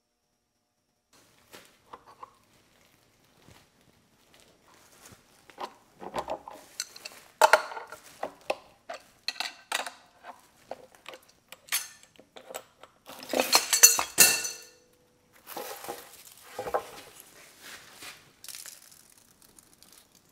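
Metal hand tools and a workpiece being handled on a milling machine table strewn with CPVC plastic chips: irregular clinks and clatters, with a longer rushing scrape of about a second and a half a little past halfway.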